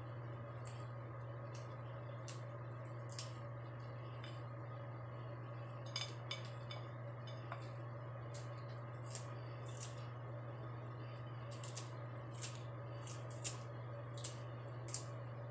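Covered pan of clams in coconut milk simmering on a gas burner: irregular small pops and ticks, about one or two a second, over a steady low hum.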